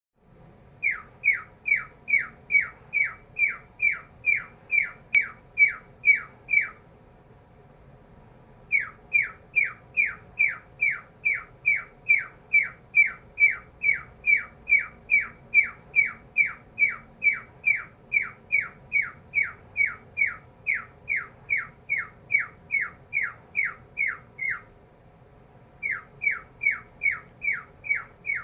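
Cockatiel repeating a short, downward-sweeping laser-like chirp about three times a second, in three long runs broken by brief pauses.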